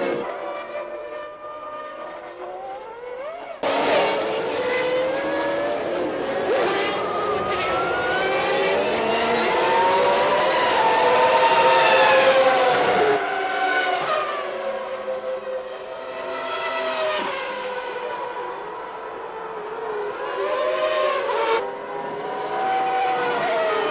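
1995 Formula One cars with 3-litre naturally aspirated engines racing past, several at once. Their high engine notes rise and fall in pitch as they accelerate, change gear and pass. The sound changes abruptly about four seconds in and again near the end.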